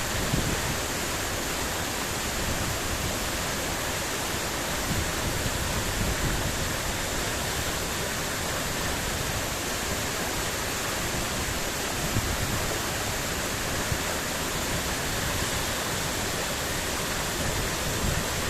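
Steady, loud rush of a waterfall's falling water, with small low rumbling swells.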